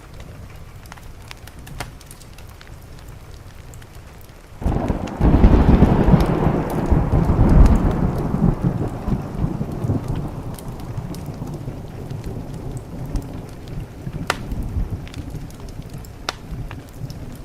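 Steady rain with a thunderclap breaking in suddenly about four and a half seconds in, a deep rumble that peaks a few seconds later and slowly fades away.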